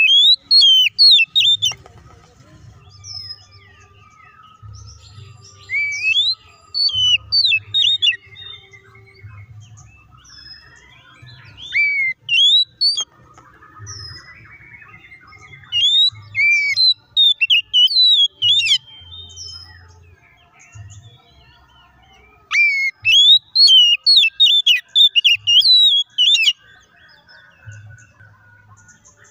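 Oriental magpie-robin (kacer) singing loud bursts of sharp, swooping whistles and chattering notes, each phrase lasting one to four seconds, with pauses of a few seconds between them.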